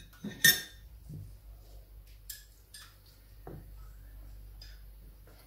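Wooden spatula stirring milk in a steel cooking pot, knocking against the pot: a sharp clink about half a second in, then a few faint knocks, over a low steady hum.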